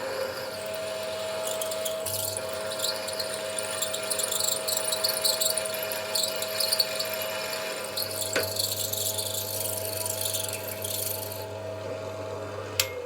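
Power drill running steadily while drilling a hole through an aluminium round bar, with a scratchy cutting noise over the motor tone. The cutting stops about eleven and a half seconds in, and a sharp click follows near the end.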